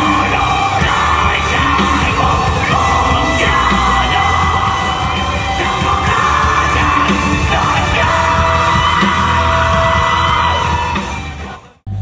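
A live rock band playing on an outdoor festival stage, heard from the crowd, with a singer shouting over the guitars and drums. The music fades out about a second before the end.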